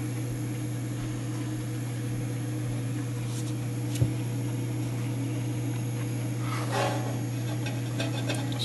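Steady low electrical hum with several fixed tones, broken by a single sharp click about four seconds in and a few faint clicks and rustles near the end as small clock parts are handled.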